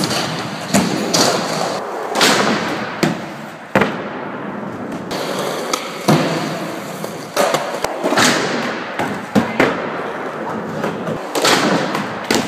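Skateboard wheels rolling on a hard floor. The deck pops and lands in sharp clacks, a dozen or so over the stretch, as tricks are done.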